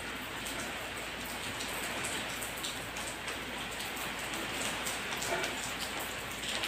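Steady rain falling, an even patter with scattered louder drops.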